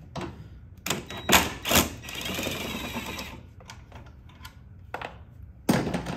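Hand tools and bolts clanking and clicking during work in a car's engine bay: a few sharp metal knocks in the first two seconds, then about a second and a half of dense rapid clicking, small ticks, and one more loud knock near the end.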